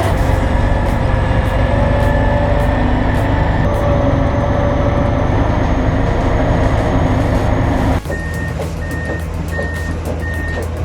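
A heavy diesel machine's engine running steadily and loudly. About eight seconds in, the sound cuts to another machine whose reversing alarm beeps about twice a second over its running engine.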